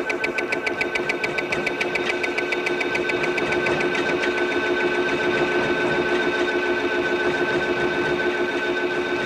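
A machine running with a fast, even clatter over a steady hum of held tones. The clatter is plainest in the first half and softens after that.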